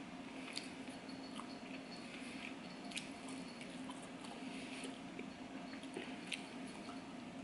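Soft chewing and wet mouth sounds of someone eating sushi, with scattered small clicks over a steady low hum.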